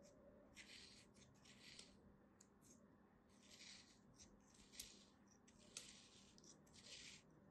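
Kinetic sand being sliced with a thin knife blade: faint, crisp scraping strokes, about a dozen at an uneven pace, with a couple of sharper ticks a little past the middle.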